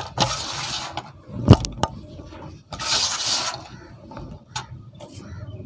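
Dry cement powder and crumbs scooped up by hand and let fall back into a basin, a gritty, hissing pour twice. A sharp knock comes between the two pours.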